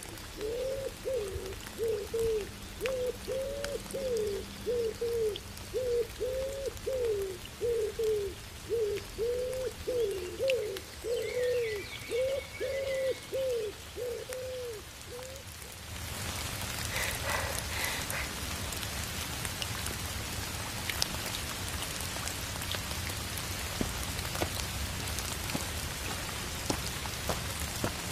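Rain falling, light at first, with a bird calling over and over in short low notes, about one and a half a second. After about fifteen seconds the calls stop and the rain turns heavy and steady.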